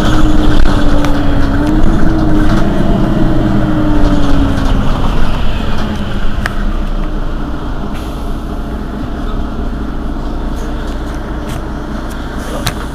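Mercedes-Benz Citaro city bus's diesel engine idling at a standstill. A whine over the engine fades out about five seconds in, and the sound gets somewhat quieter after that.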